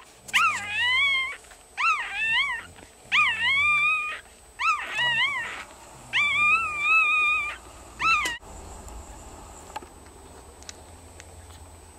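Newborn Cavalier King Charles Spaniel puppy crying: six high-pitched cries, each a quick rise and fall that settles into a held note, one after another with short gaps. The cries cut off suddenly about eight seconds in, leaving a faint hum.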